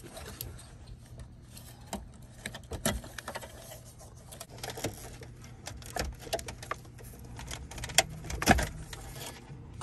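Plastic clicks, taps and rattles of wiring connectors being unplugged from a car's factory radio and climate control unit, with two sharper knocks near the end.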